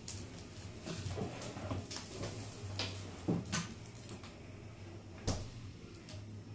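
A few scattered knocks and clicks of household items being handled and put away in a kitchen, over a low hum that comes and goes.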